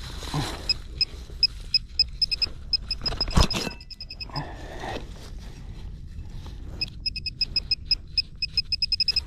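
Handheld metal-detecting pinpointer beeping high and short, the beeps coming faster and faster as its tip closes in on a buried target in the dig hole. This happens twice. About three and a half seconds in there is a single loud knock of the digging knife striking the soil.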